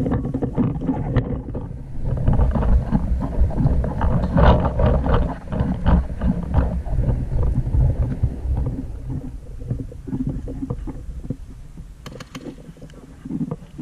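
Wind buffeting and handling noise on a body- or gun-mounted camera, a heavy low rumble broken by irregular scuffs and knocks as the player moves across the field, loudest in the middle and easing off near the end.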